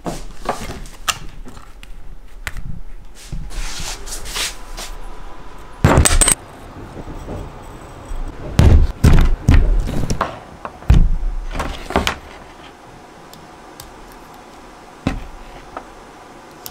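Handling noises: clicks, rattles and knocks of objects being picked up and worked by hand, with a loud burst about six seconds in and a run of loud knocks through the middle, then quieter with one more knock near the end.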